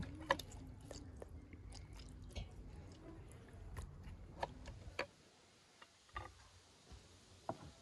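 Knife cleaning a raw rainbow trout: scattered small wet crunches and clicks, over a low rumble that drops away about five seconds in.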